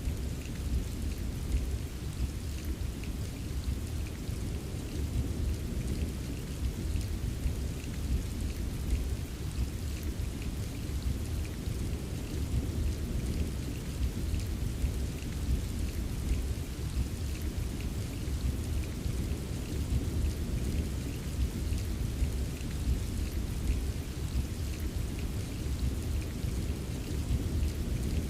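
Steady rain ambience: an even hiss of rainfall with fine scattered drop ticks over a constant deep rumble.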